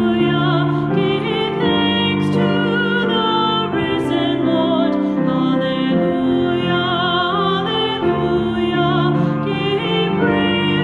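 A woman singing a hymn solo with vibrato, in long held notes over steady instrumental accompaniment.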